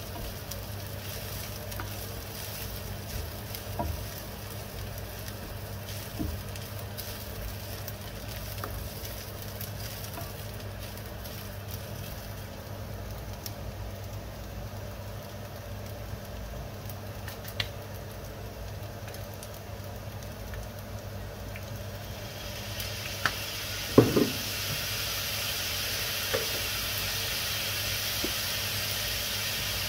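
Food sizzling as it fries in oil in a pan, with a few clicks. About 23 seconds in the sizzle turns louder and brighter, and a sharp knock follows just after.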